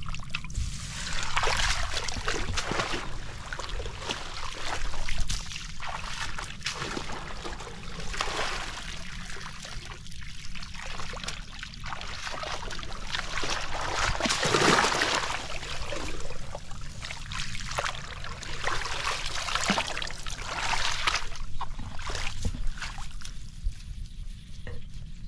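Footsteps wading through shallow flood water among grass, with a splash and slosh at each step in an uneven rhythm.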